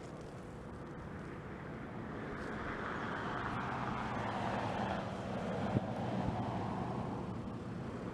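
A vehicle passing: a rushing noise that swells over a few seconds, dropping slightly in pitch, then fades. A single sharp click comes near the loudest point.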